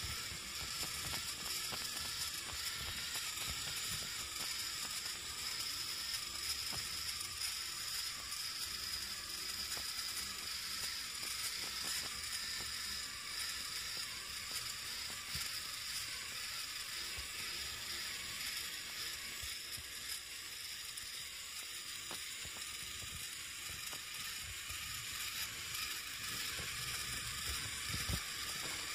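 Small electric gear motor of a toy walking robot running steadily, with a high whirr and fast ticking from its plastic gears and legs as it walks.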